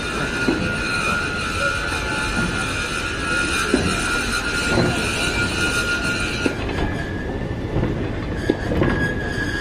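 Loose-coupled goods wagons rolling slowly past on steel wheels, with a steady high squeal that shifts pitch about seven seconds in. Low rumble and occasional clanks under the squeal.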